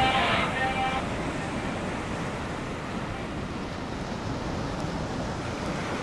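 Ocean surf: a steady rush of breaking waves, with no rhythm or tone in it. The tail of a music track dies away in the first second.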